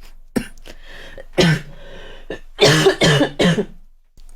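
A young woman coughing: a single voiced cough about a second and a half in, then a quick run of about four coughs in the second half.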